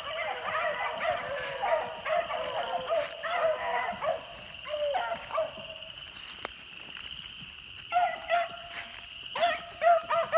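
Several rabbit-hunting dogs baying and yelping together as they run a rabbit. The cries overlap, ease off about halfway through, and pick up again from about eight seconds in.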